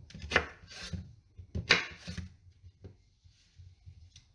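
Kitchen knife slicing a nectarine on a wooden cutting board, the blade knocking and scraping against the board several times, with most of the strokes in the first three seconds.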